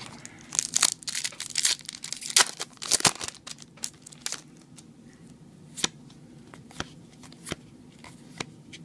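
Foil Yu-Gi-Oh! booster pack wrapper being torn open and crinkled: a dense run of crackling for a couple of seconds, followed by scattered light clicks and rustles.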